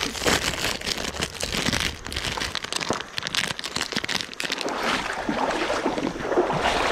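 Foil snack pouch crinkling and crackling as it is handled and torn open, a dense run of crackles over the first few seconds; after that, wind buffeting the microphone.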